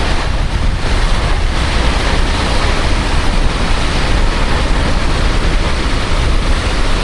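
Steady roar of falling water from the Véu da Noiva waterfall, with wind buffeting the microphone.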